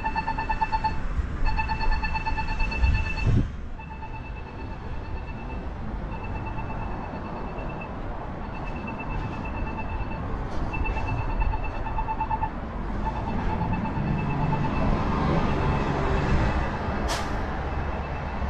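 Electronic beeper sounding rapid pulses in repeated trains about two seconds long with short gaps between them, over steady street traffic noise. Near the end there is a brief sharp hiss.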